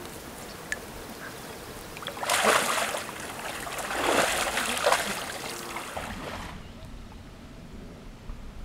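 Moose calf splashing in shallow water as it nurses roughly under its mother, in two loud bouts of splashing about two and four seconds in.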